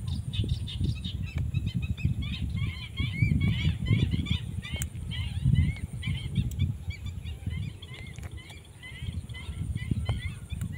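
A flock of birds calling in a dense chatter of short, quick chirps, over a low, uneven rumble of noise on the microphone.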